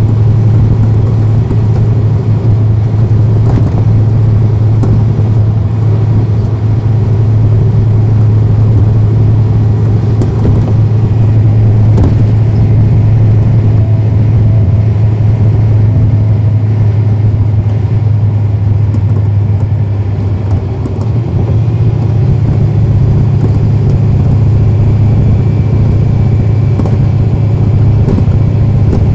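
Cummins ISL9 inline-six diesel engine of a 2010 NABI 40-foot transit bus running under way, heard from on board as a loud, steady low drone. Near two-thirds of the way through it dips briefly, then picks up again with a slightly higher note.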